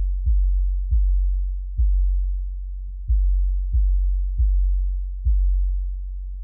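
Electronic background music built on deep bass hits, roughly one a second at uneven spacing, each fading before the next, with a faint higher line above.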